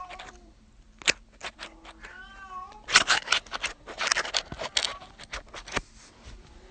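A cat meowing twice, at the start and again about two seconds in, each call wavering in pitch, between sharp clicks and rustling.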